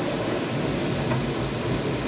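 Automatic car wash spraying water over the car, a steady rushing spray on the windshield and body heard from inside the cabin, with a steady low hum underneath.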